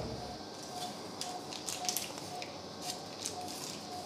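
Patient monitor beeping in time with an anaesthetised dog's heartbeat: a short steady tone about one and a half times a second. Light clicks of surgical instruments come and go over it.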